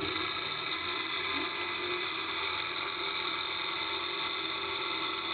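Homemade electric motor, a wire-wound coil spinning on a long shaft between disc magnets, running with a steady high whine.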